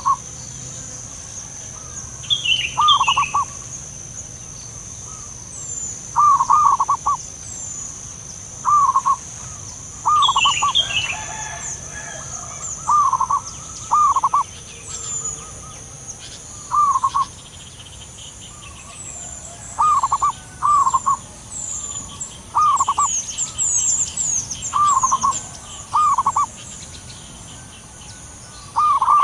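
Zebra doves cooing: short bursts of two or three quick notes, repeated every few seconds. A steady high-pitched whine and scattered high chirps run underneath.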